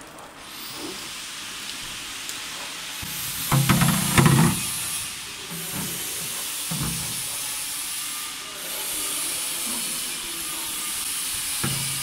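High-pressure water jets hissing steadily as they rinse the inside of a 5-gallon water bottle in a bottle rinsing and washing machine. A few louder knocks come about four seconds in, and a smaller one a few seconds later.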